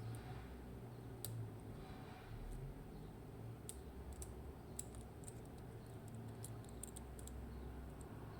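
Small, irregular metallic clicks of a dimple lock pick working the pins and rotors inside a Mottura C55 dimple lock cylinder, over a low steady hum.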